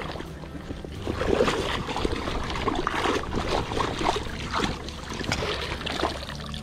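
Shallow stream water splashing and sloshing irregularly as a dip net and hands work through it.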